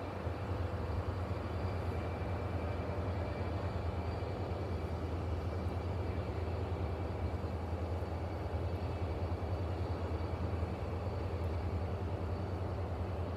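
Diesel passenger locomotive idling while the train stands at the station, a steady low hum.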